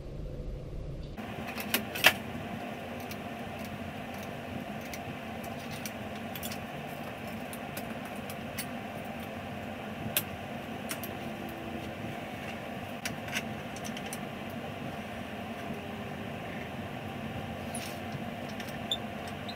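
Scattered metal clicks and clanks from setting up a Powermatic wood lathe: the chuck, tailstock and tool rest being moved and locked, over a steady hum. The loudest clack comes about two seconds in.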